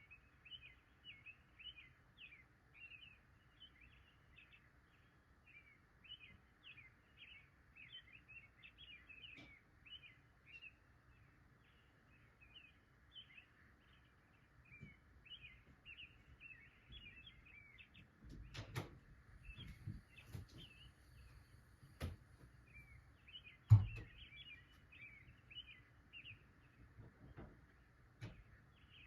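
Birds chirping in many quick, short notes over a steady faint hiss. From about two-thirds of the way through, a low rumble comes in along with a few sharp knocks, the loudest just before the end.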